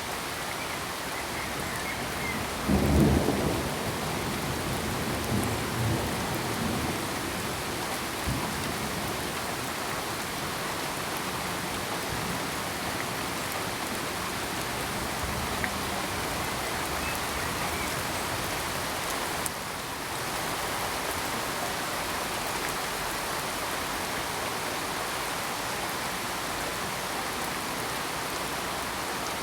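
Steady heavy rain, with a low rumble of thunder about three seconds in that dies away in weaker rolls over the next few seconds.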